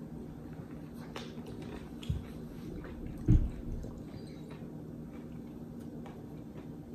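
Someone biting into and chewing a pickle wrapped in cotton candy: soft wet mouth sounds and faint clicks over a steady low room hum, with a dull thump about three seconds in.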